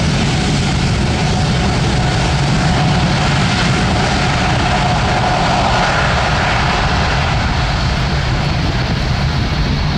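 Boeing 787-9 Dreamliner's twin turbofan engines running as the airliner rolls down the runway away from the listener: a loud, steady rumble with faint whining tones above it.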